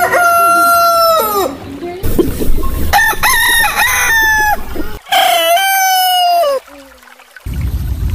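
Roosters crowing, three crows in succession from different birds. One crow ends about a second and a half in, and two more full crows come at about 3 and 5 seconds in; each holds a steady pitch and drops at the end. A steady background rumble comes in near the end.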